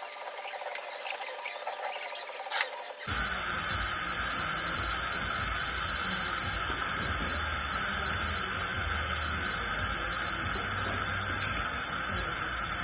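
Dental suction running through the tubes of a dry-field cheek retractor: a steady hiss.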